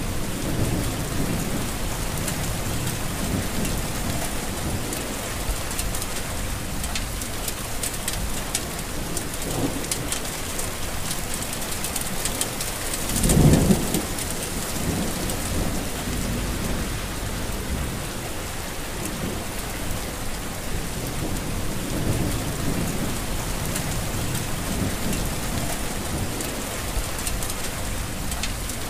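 Heavy rain falling steadily, with low thunder rolling several times. The loudest roll comes about halfway through.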